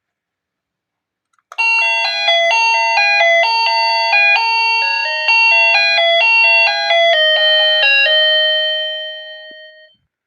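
Wireless doorbell receiver playing one of its built-in electronic chime tunes: about a second and a half in, a quick melody of bright beeping notes starts, ending on a held note that fades away.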